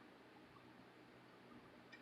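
Near silence: faint room tone, with one faint click near the end.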